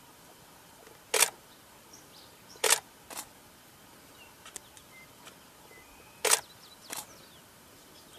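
Single-lens reflex camera shutter firing single shots: five sharp clicks, two of them coming as pairs about half a second apart, over a low steady outdoor hiss.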